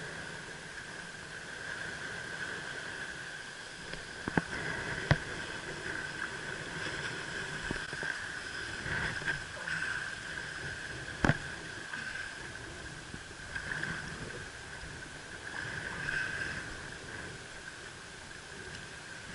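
Water noise and splashing as a hooked fish is fought through shallow reef water, under a steady high whine, with a few sharp knocks about four, five and eleven seconds in.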